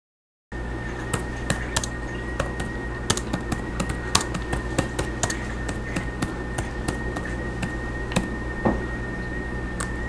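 Typing on a laptop keyboard: irregular sharp key clicks, a few a second, starting about half a second in, over a steady room hum.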